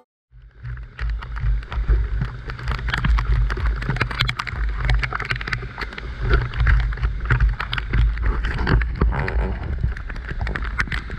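A small dive boat's outboard engine runs with a steady low rumble. Wind buffets the camera's microphone on top of it, giving many sharp crackles and clicks.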